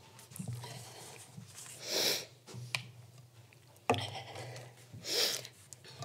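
A person sniffling close to a microphone, twice, about two and five seconds in, with a sharp click between the sniffs. A low steady hum runs underneath.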